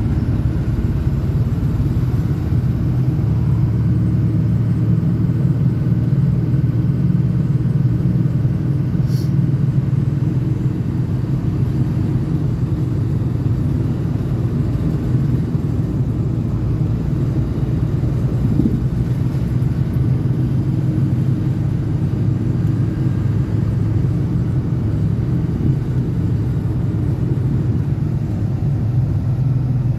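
Ford 6.0L Power Stroke V8 turbodiesel truck driving at a steady pace, a low, even engine and road rumble heard from inside the cab.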